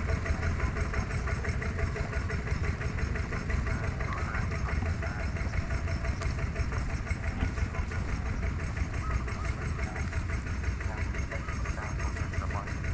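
An engine idling steadily with a rapid, even pulse.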